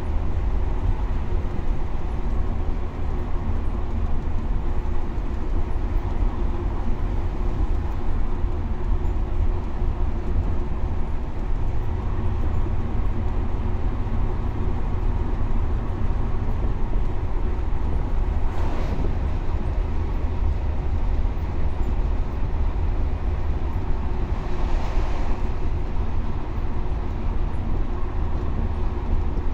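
Scania K320UA bus running at a steady speed: a constant low engine drone and rolling rumble. Two brief whooshes rise over it in the second half.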